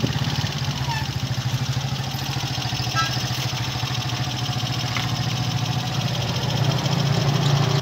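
A small engine running steadily close by, with a fast, even throb.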